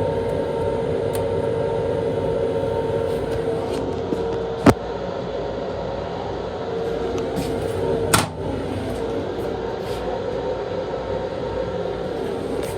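Steady running noise of a Long Island Rail Road M7 electric railcar heard inside its small restroom, with a steady hum over the rumble. Two sharp knocks cut through, about three and a half seconds apart, the second louder and followed by a brief rattle.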